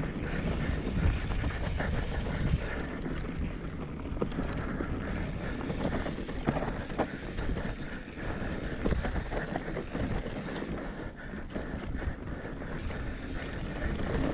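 Mountain bike running down a dirt singletrack: wind rushing over the microphone, tyres rolling on dirt, and frequent small knocks and rattles from the bike over bumps.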